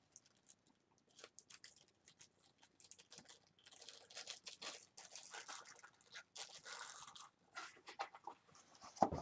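Faint rustling and crinkling of plastic packaging with scattered light clicks as small items are handled, busiest in the middle.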